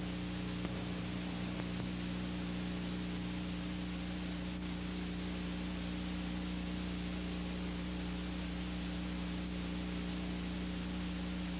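Steady hiss with a low electrical hum and no other sound. This is the noise floor of an old black-and-white film transfer whose soundtrack carries no recorded sound.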